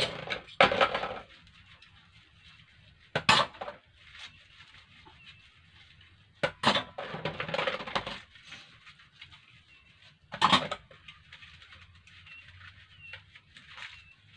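Dishes being hand-washed at a kitchen sink: plates, cups and glasses clink and clatter against each other. There are four loud clatters a few seconds apart, with quieter rattling and handling between them.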